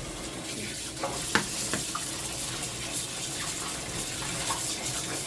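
Kitchen tap running, water splashing over salted napa cabbage as it is rinsed by hand, with a light knock about a second and a half in.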